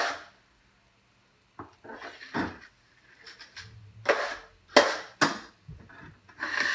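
Steel drywall knife scraping joint compound on the wall and against the edge of a metal mud pan. There is a sharp clack at the start, then a run of short scrapes, and a longer scrape near the end.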